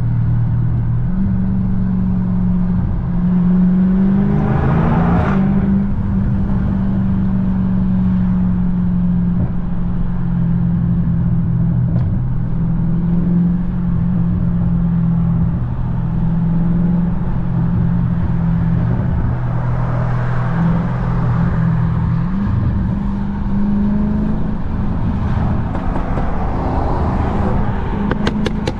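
Car engine running at steady revs, a low drone whose pitch steps up and down now and then, with a short swell of noise about five seconds in and a few sharp cracks at the very end.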